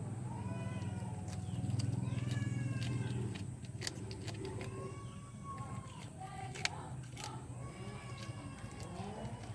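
Asian palm civet growling low while holding its mouse prey in its jaws, strongest over the first three seconds and then fading, with higher pitched calls and a few sharp clicks over it.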